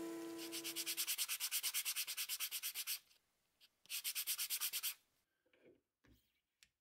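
Hand sanding: a small piece rubbed quickly back and forth on a sandpaper-covered block, about eight or nine scratchy strokes a second. It runs for about two and a half seconds, stops briefly, then goes on for about another second.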